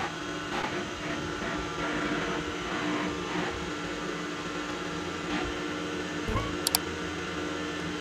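CNC vertical milling machine running, a steady mechanical hum with one constant tone, as the table carries the vise-held workpiece in under the spindle's end mill. A couple of sharp clicks come near the end.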